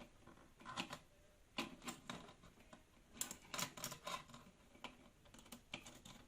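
Irregular light clicks and taps of small hard objects being handled on a workbench, in short clusters.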